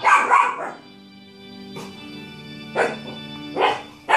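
Shiba Inu puppy barking at a cat in short, sharp yaps: two quick ones at the start, then single barks about three times in the second half. Behind them, background music holds a steady chord from about a second in.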